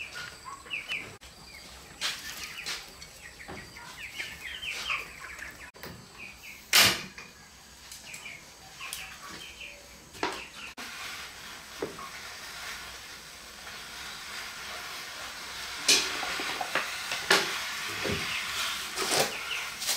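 Small birds chirping, with scattered knocks and clatter of cooking pots; the loudest knock comes about seven seconds in. A steady hiss builds in the second half, with more knocks over it.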